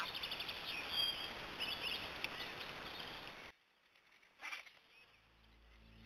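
A steady outdoor hiss with a few birds chirping. It cuts off abruptly about three and a half seconds in, followed by a brief short sound and faint music starting near the end.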